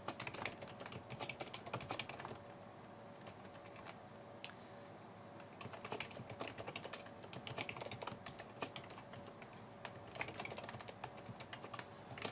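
Typing on a computer keyboard: quick runs of keystrokes in a few bursts, with pauses of a couple of seconds between them.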